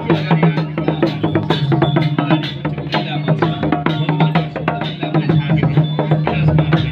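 Panche baja band of Damai musicians playing: quick, dense strokes on slung two-headed drums, with a steady held low tone underneath.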